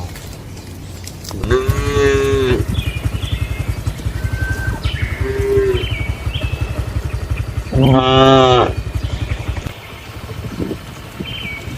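Cow mooing: two long, loud moos, about a second and a half in and again near eight seconds, with a shorter, lower call between them. Faint bird chirps and a low steady rhythmic rumble run underneath.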